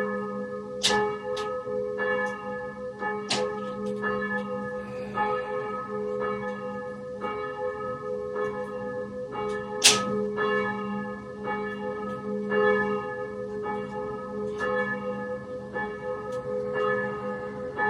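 Church bells ringing, one strike after another at uneven intervals, with each bell ringing on under the next.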